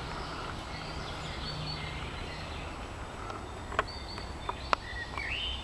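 Outdoor ambience: a steady low rumble with faint, short bird chirps above it, and a few sharp clicks about four and five seconds in.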